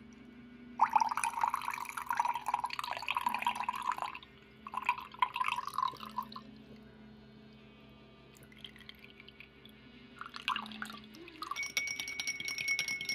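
Soy milk poured from a carton into a glass: one long pour of about three seconds, then a shorter second pour. Near the end a metal teaspoon stirs in the glass, with light clinks and a thin ringing.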